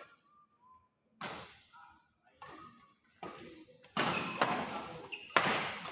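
Badminton rackets striking the shuttlecock in a rally: a string of sharp knocks about a second apart, the two loudest near the end.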